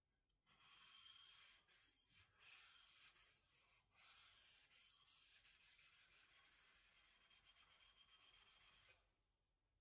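Steel blade of a Japanese deba knife scraping back and forth on a wet whetstone: a faint, high, hissy grinding in strokes, with a few short pauses at first, then quick, even strokes from about halfway until it stops near the end.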